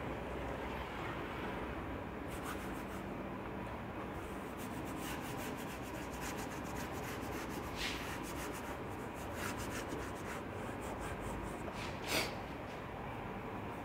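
Chalk scraping on a blackboard in a run of short, quick strokes as grid lines are drawn. One scrape a little before the end is louder than the rest.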